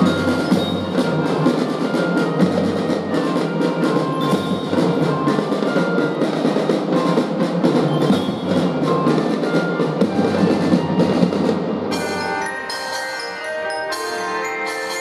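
A children's drum and fife band playing: drums under a ringing, bell-like glockenspiel melody. About twelve seconds in the drumming stops and the bell-like melody carries on alone.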